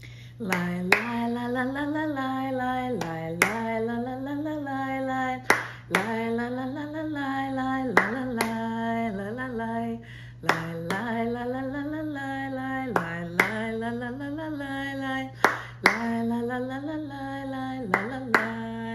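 A woman singing a melody alone and clapping her hands in time, about one clap every two to three seconds.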